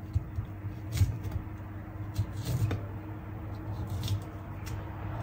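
Kitchen knife cutting through a small bamboo shoot and knocking on a plastic cutting board: a handful of short, irregular taps and cuts as the bad parts are trimmed away. A low steady hum runs underneath.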